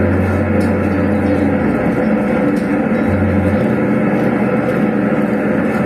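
Large rented PA sound system playing loud, distorted sound during a sound check. A deep bass note is held for the first second and a half and comes back briefly about three seconds in.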